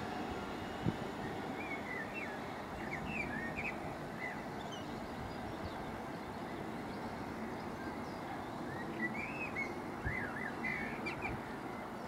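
Small birds chirping in short, quickly rising and falling calls, in two spells a few seconds apart, over the low steady rumble of an electric multiple-unit train pulling away into the distance.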